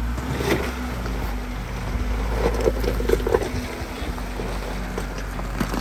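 Off-road vehicle engine running at low speed with a steady low rumble, and a cluster of short knocks about halfway through, like tyres and chassis on rock.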